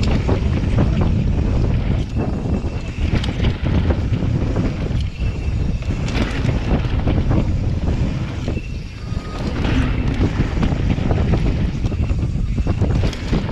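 Wind buffeting the camera microphone and the tyres of a Santa Cruz Nomad mountain bike rumbling over a dirt trail at speed, with steady rattling and clatter from the bike over bumps.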